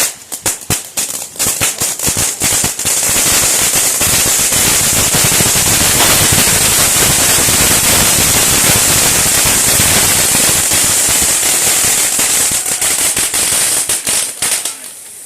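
Pyrotechnic crackling, firecracker-like. It starts as rapid separate pops, merges about three seconds in into a dense continuous crackle with a sharp hiss, then thins to scattered pops near the end and stops.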